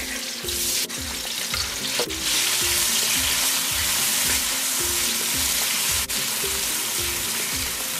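Curry leaves and chopped tomato sizzling in hot oil in a nonstick wok while being stirred with a wooden spatula. The sizzle grows louder about two seconds in and stays steady after that.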